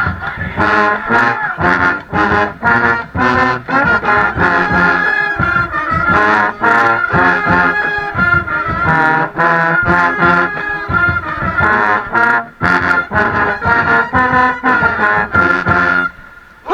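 Band brass section, trombones and trumpets, playing a stand tune in short, punchy rhythmic notes; the music stops near the end.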